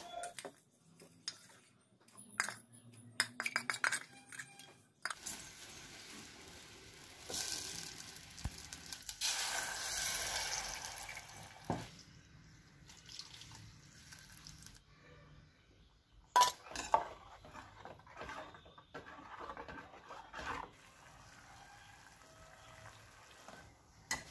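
Steel pots and kitchen utensils clinking and knocking, with a stretch of several seconds of thick blended masala paste being poured from a glass jar into a steel pot.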